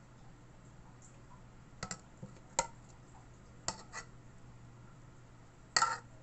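Metal spoon clinking against a metal baking tray and bowl while spooning and spreading a thick cream mixture: about five short, sharp clicks, the loudest near the end, over a faint steady low hum.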